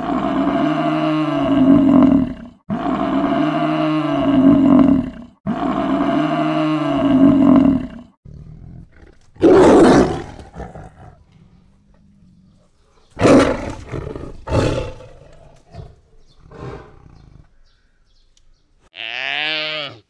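African buffalo bellowing: three identical deep calls of about two and a half seconds each. Then tiger cub growls: one loud rough call, two more a few seconds later and some fainter ones. Near the end comes a short higher call.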